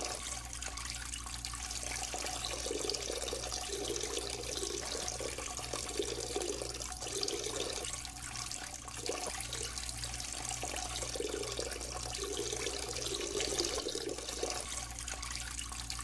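Recorded sound effect of a person peeing: a steady stream of liquid splashing without a break, played as a radio sound drop.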